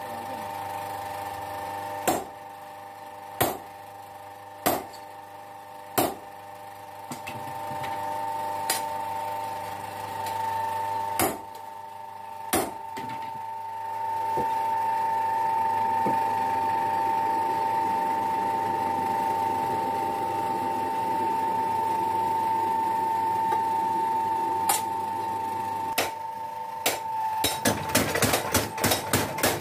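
Hammer blows strike and ring on hot steel on an anvil, spaced irregularly, over a steady machine hum. Near the end a belt-driven mechanical forging hammer starts pounding rapidly, about four blows a second.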